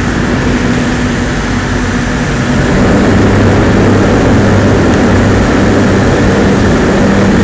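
Heavy diesel engine running steadily over churning water. Its note changes and it grows slightly louder about three seconds in.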